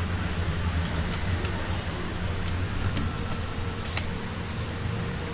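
Steady low background hum, with a few light clicks scattered through it and a sharper click about four seconds in.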